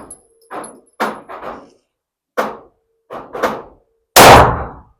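A single loud handgun shot fired close by about four seconds in, its report ringing out briefly. Before it comes a string of quieter sharp cracks.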